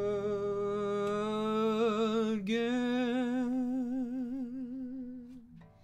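A man singing one long held note with vibrato. He moves to another held note about two and a half seconds in, which trails off near the end.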